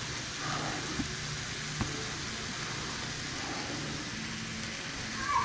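Fajita meat frying in a pan, a steady sizzle with two small clicks about one and two seconds in.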